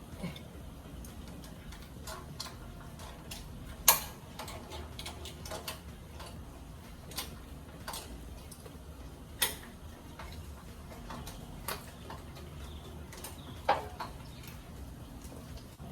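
Irregular sharp clicks and metal knocks from hand tools and hardware as the engine is unbolted from the hoist. The loudest knocks fall about four seconds in, near the middle, and near the end.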